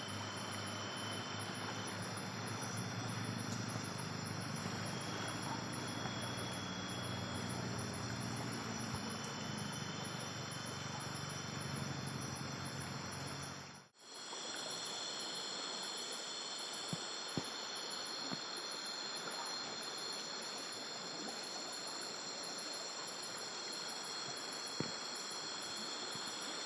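Night chorus of crickets and other insects: a steady chirring hiss with several high, even trills and one fast-pulsing trill on top. A low steady hum runs under it until a sudden cut about halfway through, and a few faint ticks come later.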